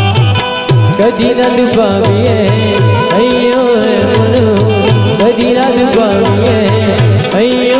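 Devotional bhajan music: a wavering melody line over hand-drum percussion and a repeating low bass pattern.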